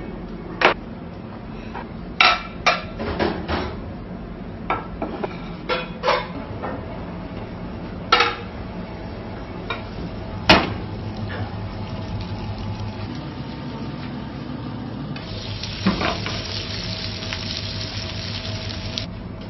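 Kitchen utensils knocking and clinking against pots and dishes, a dozen or so separate strikes, then about four seconds of loud sizzling near the end, as of food frying in hot oil.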